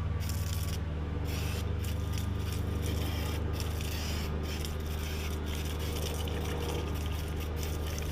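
Aerosol engine-cleaner can spraying in hissing spurts that keep cutting out, sputtering because the can is almost empty. Under it runs the steady low hum of a ventilator fan.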